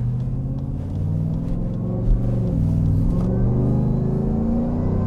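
A supercharged Harley-Davidson F-150 pickup's V8 accelerating hard at full throttle, heard from inside the cab. The engine note climbs, drops with an upshift about halfway through, then climbs again into another shift near the end.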